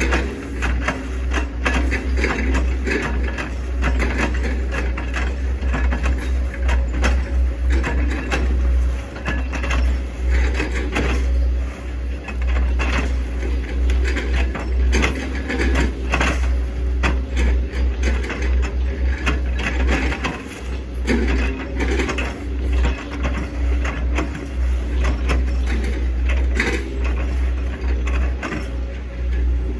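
Hitachi ZX110 excavator's diesel engine running under load, a steady low drone, with irregular cracking and knocking throughout.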